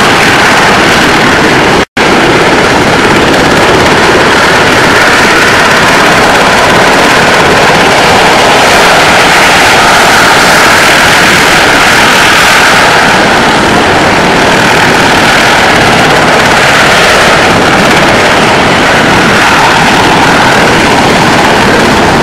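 U.S. Coast Guard MH-60 Jayhawk helicopter hovering close by: loud, steady rotor and engine noise. It cuts out suddenly for a fraction of a second about two seconds in.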